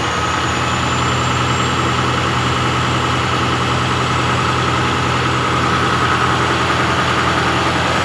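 Mitsubishi 6M70 inline-six diesel engine idling steadily after its injectors were calibrated to cure hard starting. It runs smoothly and evenly, picking up slightly about half a second in.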